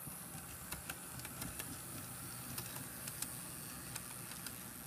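HO scale model train running on the track toward and across a truss bridge: a steady hum of the locomotive, with scattered light clicks from wheels passing over the rail.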